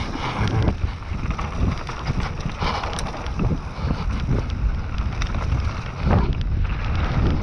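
Mountain bike riding fast down dirt singletrack: wind buffeting the microphone over the tyres rolling on dirt, with frequent knocks and rattles as the bike goes over bumps and roots.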